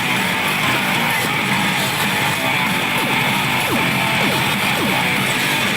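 Pachinko machine playing guitar-driven music over a dense, steady din, with a few quick falling electronic tones in the middle.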